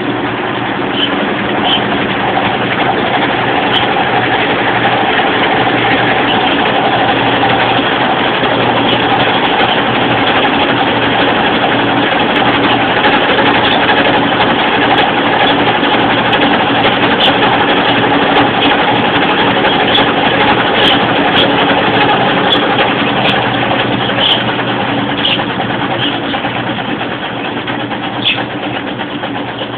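Electrolux LTR10 washing machine spinning an unbalanced load: a loud, steady motor and drum hum, with scattered short knocks in the second half.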